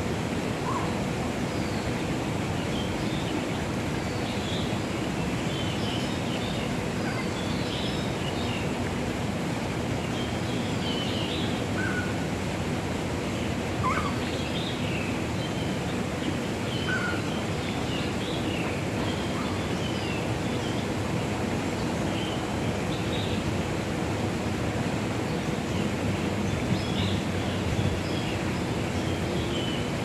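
Bird calls over a steady rushing noise. Many short, high chirps are scattered throughout, and a few brief, lower single calls come now and then from the flamingo flock and small birds around the pond.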